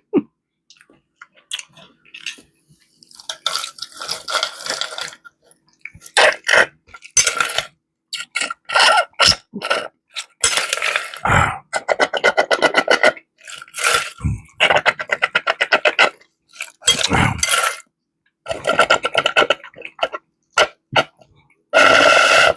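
Close-miked eating mouth sounds: wet chewing and lip smacking in repeated bursts of rapid crackly clicks with short pauses between them.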